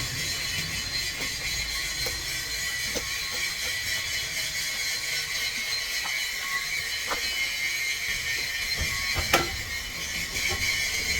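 Steady mechanical whirring with a few scattered metallic clicks and one sharper knock about nine seconds in.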